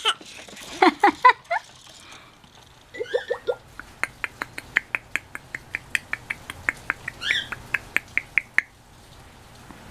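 A baby's short coos and squeals, then a quick run of short, high, squeaky chirps, about five a second, which stops about a second before the end.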